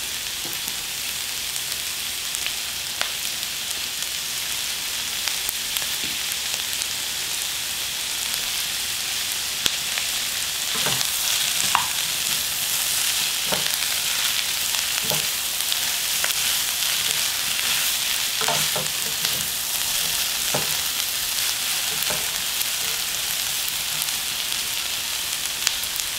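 Sweet potato stems and onion sizzling in a nonstick wok as they are stir-fried. From about ten seconds in, wooden chopsticks and a spatula toss them, knocking irregularly against the pan.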